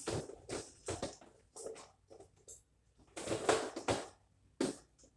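Plastic Jello cups being handled and set onto a refrigerator shelf: a series of irregular light clatters and rustles, loudest a little past three seconds in.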